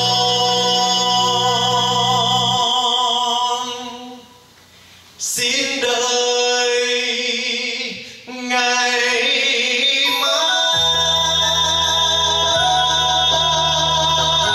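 A man singing into a microphone, accompanied by a đàn bầu (Vietnamese one-string monochord) plucked with a plectrum. The music drops almost to silence for a moment about four seconds in, then picks up again.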